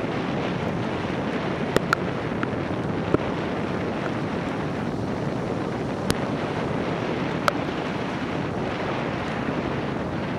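Steady rushing noise of wind and rain on the microphone of a 360 camera mounted on a moving car in the rain, with a few sharp ticks scattered through it.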